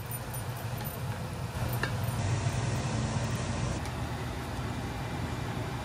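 Steady low machine hum in a home kitchen, with one light tap about two seconds in.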